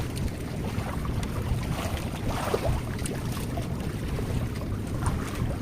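Wind buffeting the microphone at sea, a steady low rumble, with waves sloshing.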